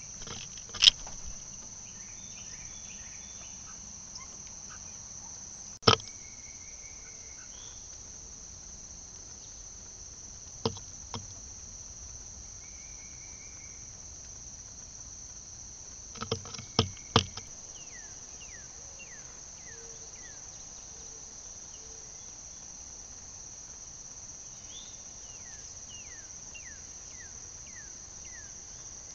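Steady high-pitched drone of insects, broken by several sharp clicks. A bird gives a series of short falling chirps in the second half.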